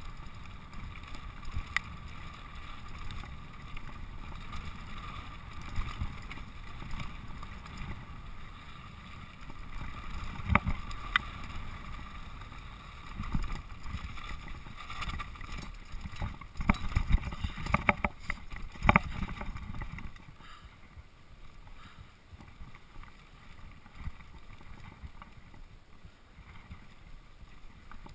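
Mountain bike riding fast down dirt singletrack: steady rushing noise from air on the microphone and tyres rolling on dirt, with sharp clatters as the bike hits bumps, about ten seconds in and several more between about 17 and 19 seconds. The noise drops off after about 20 seconds.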